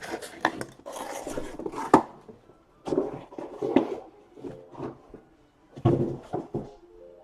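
Irregular rustling, tapping and clicking of trading cards and packaging being handled on a table, in several short clusters with brief pauses.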